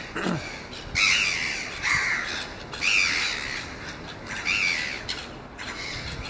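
Seagulls calling overhead: four short cries that each rise and then fall in pitch, about a second apart.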